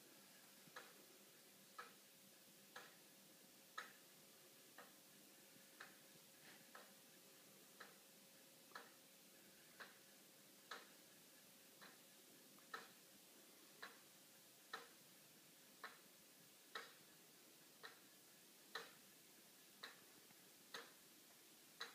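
Homemade wooden pendulum clock with plywood gears, a seconds pendulum and a Graham anchor escapement, ticking once a second. Each tick is a short, sharp click, some a little louder than others.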